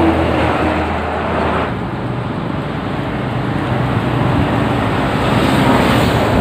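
Busy highway traffic close by: cars and motorcycles passing in a steady stream. A low engine hum fades about two seconds in, and the traffic noise builds again near the end.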